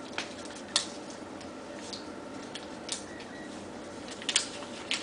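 A sheet of origami paper being folded and creased by hand: scattered short paper crinkles and clicks, a little louder and closer together about four seconds in.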